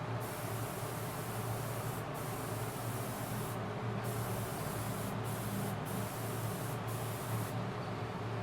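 Paint being sprayed onto a repaired alloy wheel rim: a spray gun hissing in long bursts that stop for a moment several times, over a steady low hum.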